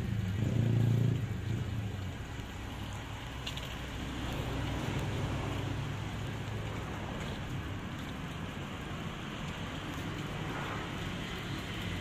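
Electric drive motors of a homemade four-wheel-drive remote-control mower chassis running steadily as it rolls along on knobby tyres, a low steady hum under a noise haze, a little louder in the first second.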